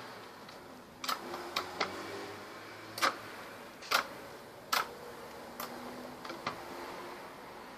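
Violet crystal (clear) slime being pressed and squished by hand, giving a scattered series of sharp clicks and pops, about nine of them at irregular intervals.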